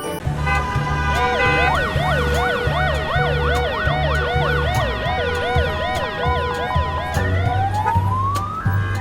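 Electronic emergency-vehicle siren, a rapid yelp sweeping up and down about three times a second, starting about a second in and ending near 7 s with a rising whine. Background music with a repeating bass line runs underneath.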